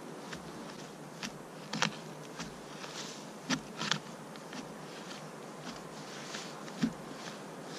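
Wooden digging stick jabbing and scraping into loose woodland soil, in irregular short strokes, the strongest about two seconds in, around three and a half to four seconds in, and one near the end.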